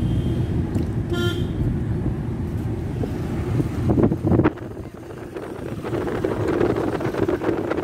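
Road and engine rumble from inside a moving car, with a short vehicle horn toot about a second in and a brief louder rush of traffic about four seconds in.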